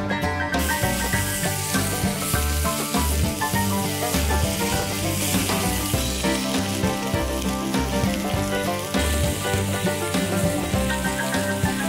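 Ground-beef burger patty sizzling as it fries in a small camping pan, a steady hiss that starts about half a second in, over background music.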